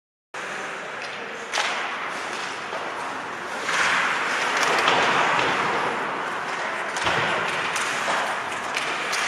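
Ice hockey play: skates scraping on the ice with sticks and puck knocking, and a sharp knock about a second and a half in.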